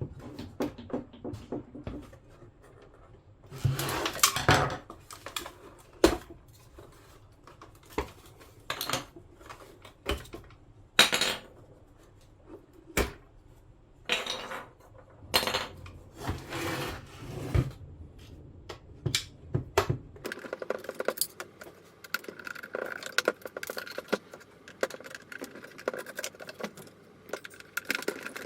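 Clicks, knocks and clatter of small hard parts, plastic radio pieces, being handled and set down, with a few short scraping bursts. From about 20 seconds in, a quicker run of light ticks.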